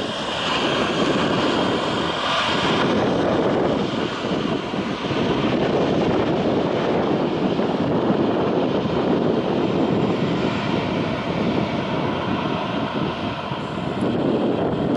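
Twin-engine jet airliner's engines running as it rolls along the runway: a steady jet rumble, with a high whine that is strongest in the first few seconds and then fades as the aircraft moves away.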